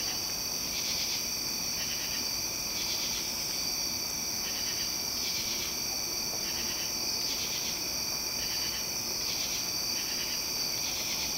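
Chorus of night insects: a steady high trill, with a second call pulsing on and off about once a second.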